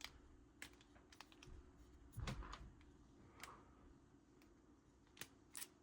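Faint, scattered small clicks and taps of a screwdriver and small screw against 3D-printed plastic robot parts being handled, with one soft knock about two seconds in.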